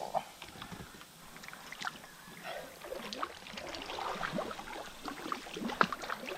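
Water sloshing and lapping with scattered small knocks and clicks, the kind of noise made while handling gear at the water's edge.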